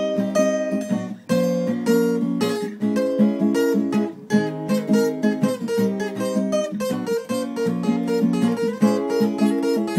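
Acoustic guitar strummed and picked in an instrumental break, chord strokes in a steady rhythm with no singing.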